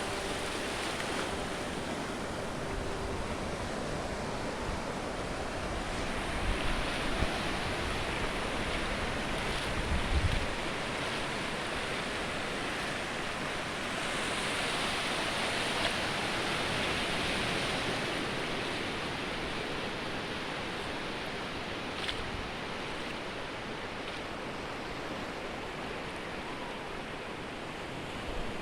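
Sea waves washing, swelling louder twice, with a few low thumps about a third of the way in.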